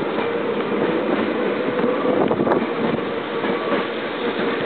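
Meitetsu 7000 series electric train pulling out, its cars rolling past close by with steady running noise and a steady hum.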